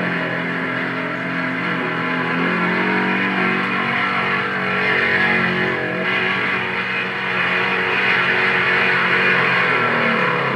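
Engine of a small homemade propeller airplane running steadily in flight, heard together with background music on an old film soundtrack.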